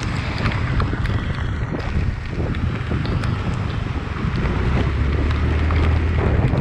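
Wind buffeting the microphone while riding a small motorcycle, with the engine's low running sound underneath.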